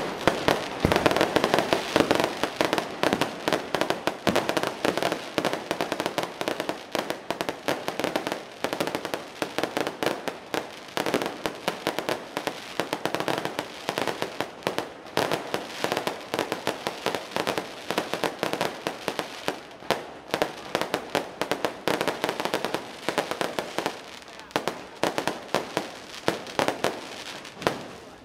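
Aerial fireworks fired in a rapid electronic sequence from a cart, a continuous barrage of sharp bangs and crackling bursts several a second without a break.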